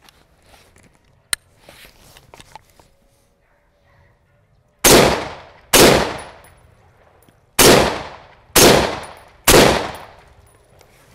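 Chinese Type 56 SKS semi-automatic rifle in 7.62×39 mm fired five times, two quick shots, then a pause, then three more about a second apart, each with a short echoing tail. A single sharp click comes about a second in.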